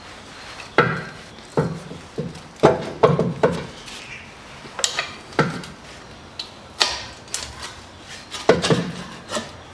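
Irregular metal knocks, clanks and scraping as a screwdriver prises the rubber exhaust hanger off its hook and the unbolted front exhaust pipe is worked loose, about a dozen sharp hits in all.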